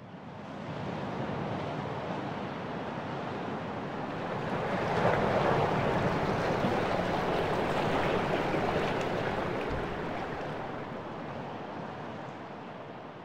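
Rushing sea waves and wind, a steady noise that swells in over the first second, is loudest in the middle and slowly fades away.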